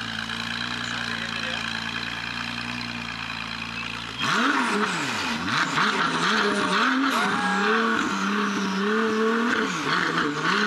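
Ferrari 296 GTB's twin-turbo V6 running steadily at low revs. About four seconds in, it is revved in a series of quick rising-and-falling blips, then held at raised revs, over crowd noise.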